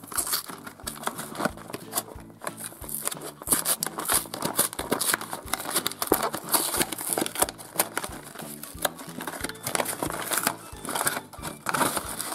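A cardboard Kinder Surprise three-pack box being torn open and its paper inner liner crinkled and peeled back, a steady run of irregular crackles and rips, over quiet background music.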